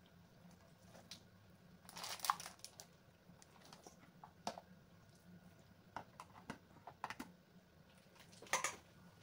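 Faint crinkling and light clicks of a clear plastic meat tray as ground meat is tipped and shaken out of it into a stainless steel bowl, with crinkly bursts about two seconds in and again near the end.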